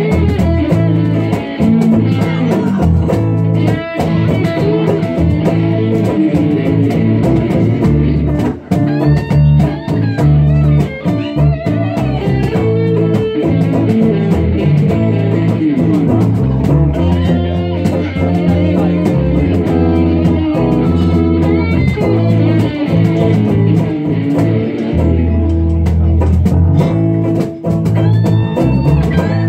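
Live blues band playing an instrumental passage with no singing: two electric guitars over a bass guitar.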